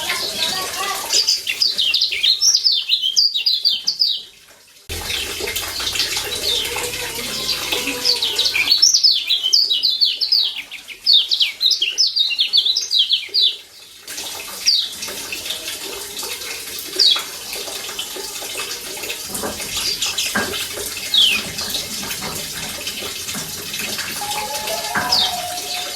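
Kecial kuning, the Lombok white-eye, giving rapid chattering 'ciak' calls: two long bursts of quick, high, falling chirps, then scattered single chirps, over a steady hiss.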